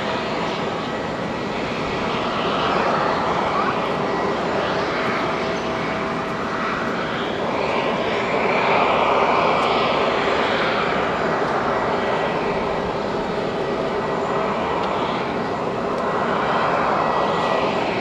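Airbus A330-300's twin GE CF6-80E1 turbofans running at low taxi power as the airliner lines up for takeoff: steady jet noise with a faint steady whine, swelling and easing slightly.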